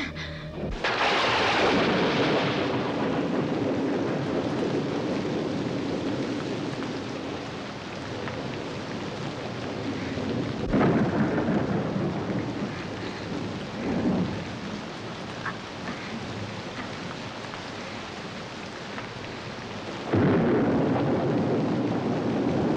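Thunderstorm: steady rain with rolling thunder. A loud thunderclap about a second in rumbles on for several seconds, a further clap comes about halfway through with a smaller one soon after, and another loud one near the end.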